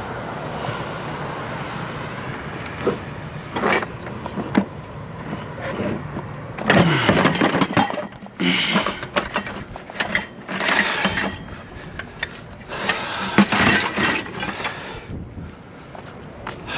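Scrap and debris being shifted and dragged around inside a metal open-top dumpster: a few knocks, then a run of loud, irregular scraping and clattering, over a steady background hum.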